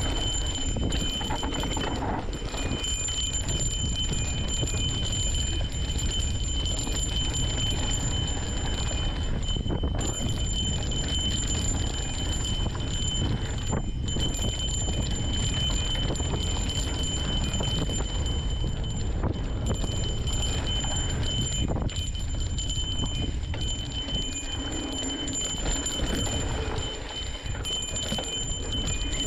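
Mountain bike riding fast down a dirt singletrack: wind buffeting the camera microphone and tyres rolling and rattling over the rough trail, with occasional knocks from bumps. A steady high whine sits over the noise.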